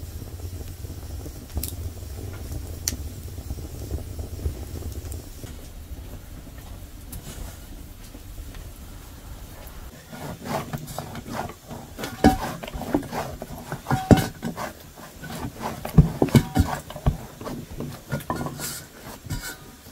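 Wood fire burning in a hearth with a low rumble and occasional crackles. About halfway through, this gives way to dough being kneaded by hand in an enamel bowl: irregular slaps and knocks of dough and hands against the metal bowl.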